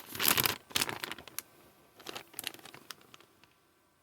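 Plastic packaging bag crinkling as it is handled, in rustling bursts that die away near the end.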